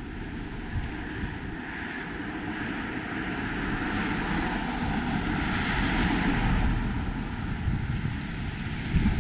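Noise of a passing vehicle, swelling to a peak about six seconds in and then easing off, over a low rumble.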